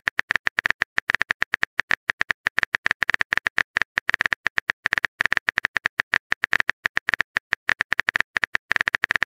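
Simulated phone-keyboard typing sound: rapid crisp clicks, roughly ten a second, one per letter as a text message is typed out.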